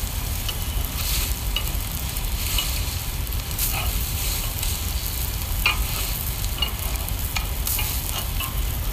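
Small egg omelettes frying in oil on a flat cooking plate: a steady sizzle with scattered small pops and crackles.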